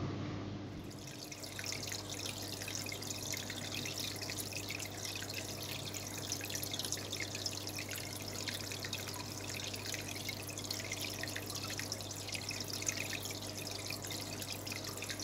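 Water trickling and dripping, a dense patter of small splashes, with a steady low hum underneath, starting about a second in.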